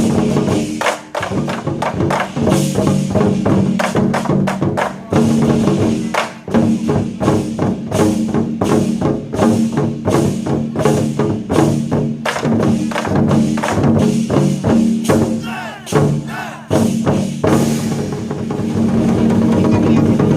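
Chinese war drums (zhan gu) beaten by a drum troupe in dense, rapid strokes over a recorded backing track with steady sustained notes. The drumming drops away a couple of seconds before the end, leaving the backing music.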